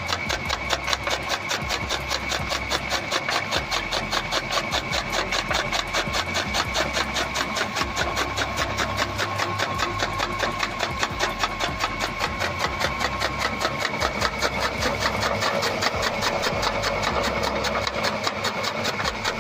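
Electric-motor-driven chaff cutter running, the blades on its belt-driven flywheel chopping green fodder in a rapid, even clatter. A steady high motor whine sounds over the chopping.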